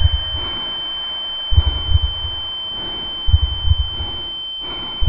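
A steady high-pitched electronic tone sounding without a break, with groups of low thuds about every one and a half seconds.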